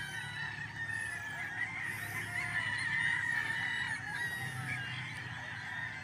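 A continuous chorus of many birds calling at once, a dense tangle of overlapping chirps.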